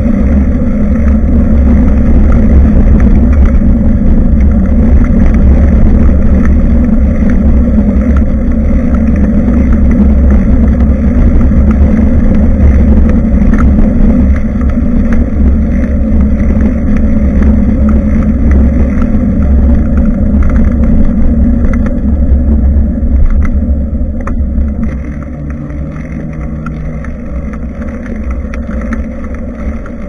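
Wind rumbling on a bike-mounted action camera's microphone while cycling, with tyre and road noise; it gets noticeably quieter about 24 seconds in. A brief low hum comes in around 25 seconds.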